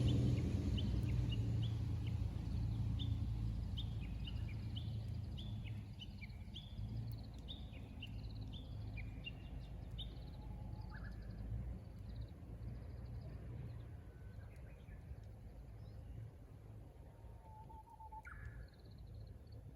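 Wild birdsong: a quick series of short high chirps through the first half, then a Japanese bush warbler's song near the end, a long low whistle jumping to higher notes. A low engine rumble fades away over the first few seconds.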